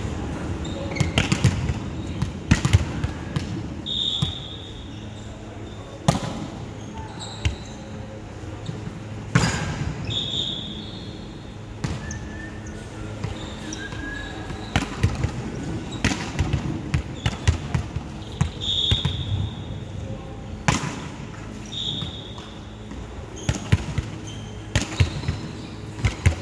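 Volleyball rally: sharp smacks of the ball being hit by hands and forearms every few seconds, with short high squeaks of sneakers on the hardwood court in between.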